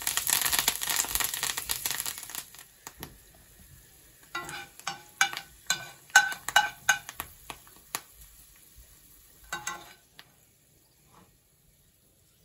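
A tadka being made: curry leaves hit hot oil with cumin and dried red chillies in a frying pan and sizzle loudly for about two seconds, marking the tempering for a chutney. A metal spoon then stirs, with a quick run of clinks against the pan, and clatters once more later on.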